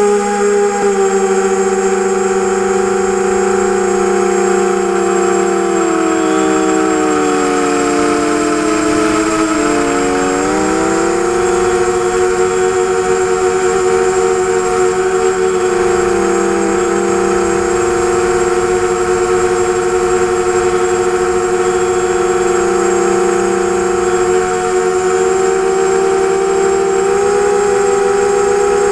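ZMR250 250-size quadcopter's four brushless motors and propellers whining in flight, close to the onboard camera. Several close tones shift together with the throttle, dipping in pitch about eight to ten seconds in and then climbing back.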